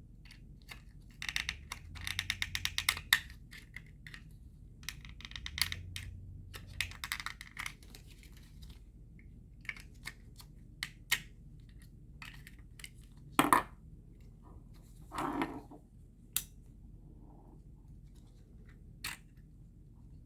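Irregular clicks, taps and two spells of dense rattling from small hard parts being handled and worked on, likely pieces of a GFCI outlet. A sharp knock comes about two-thirds of the way through, followed by a short scrape.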